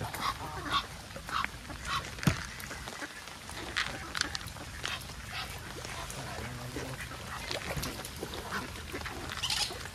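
Geese and ducks calling: many short honks and quacks, busiest in the first couple of seconds and again near the end.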